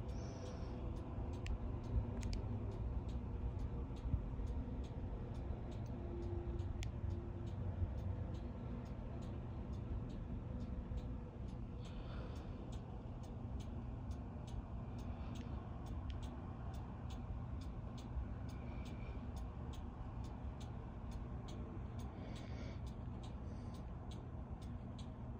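Steady, even ticking, about two ticks a second, over a constant low rumble.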